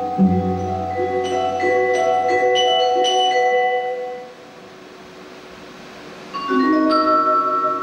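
Live ensemble music led by mallet percussion: struck, ringing notes over a low sustained drone that fade away about halfway through, then a new chord is struck and rings on.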